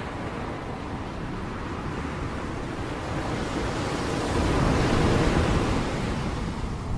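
Ocean surf: a continuous wash of breaking waves, swelling louder about four to five seconds in and then easing.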